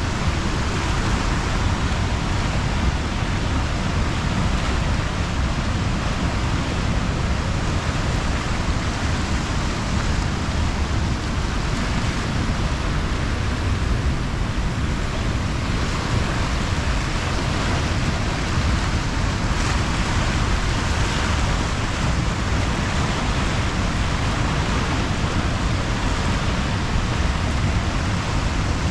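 The Dobra river in flood, its fast, swollen brown water rushing and churning past in a loud, steady noise.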